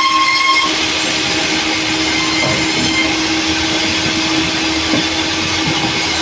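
Sawmill saw running with a loud, steady mechanical noise and a constant hum, plus a higher whine that drops out within the first second.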